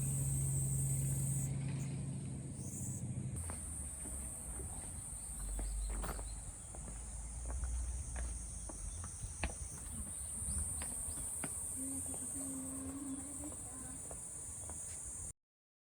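Insects trilling steadily at a high pitch, with a low hum that stops about three seconds in and scattered light clicks and taps. The sound cuts off abruptly near the end.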